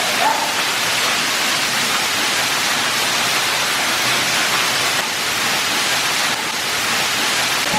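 Waterfall inside a cave: a steady rushing of falling water.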